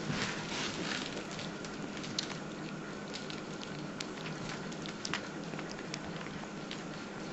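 A baby kinkajou chewing grapes: irregular small clicks and smacks over a steady background hiss.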